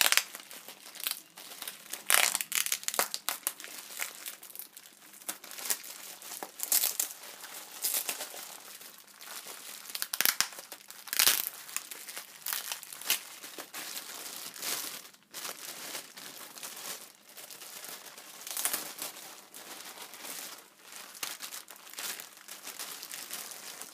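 Thin plastic crinkling and crackling in irregular bursts, a packet of plastic chocolate molds being opened and handled, with a few louder sharp crackles along the way.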